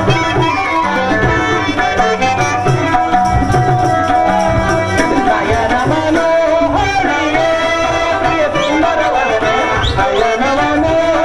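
Stage music accompanying the drama: tabla playing under steady held melody notes, with a melody line that glides up and down in pitch.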